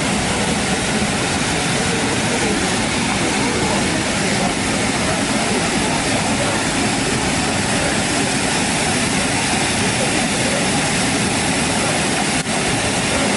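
Tezutsu hanabi, a hand-held bamboo tube firework, spraying its column of sparks: a loud, steady, jet-like rushing hiss, with a brief break near the end.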